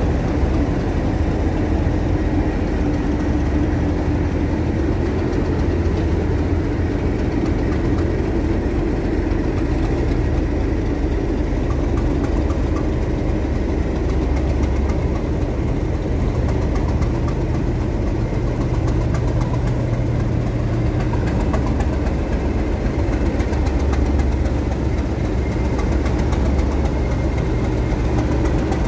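Class 37 diesel locomotive's English Electric V12 engine idling steadily.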